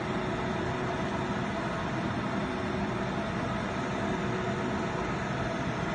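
Steady machine hum with hiss, unchanging throughout, with a few faint steady tones in it.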